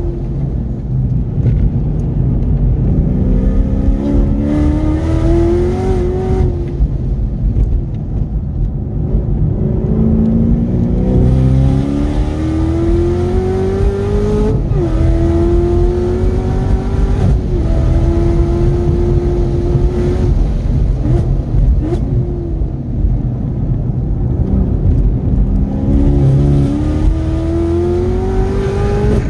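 Supercharged 6.2-litre V8 of a 2018 Chevrolet Camaro ZL1 1LE heard from inside the cabin, accelerating hard. The engine note climbs, drops at each of several upshifts, runs lower for a few seconds, then climbs again near the end, over a steady low rumble.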